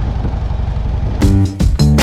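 A motorcycle engine running with a steady low rumble, then a little over a second in, music with guitar and drums cuts in abruptly and takes over.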